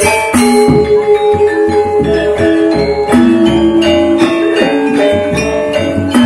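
Sasak saron gamelan ensemble playing: metal-keyed metallophones struck with mallets in quick runs of ringing notes, over the repeated strokes of hand-played drums.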